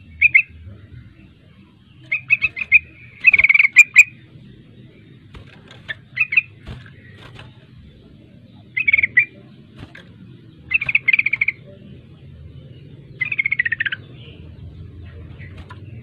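Yellow-vented bulbul (trucukan) singing in short bursts of rapid, chattering notes. There are about seven phrases with pauses between them, and the last slides down in pitch.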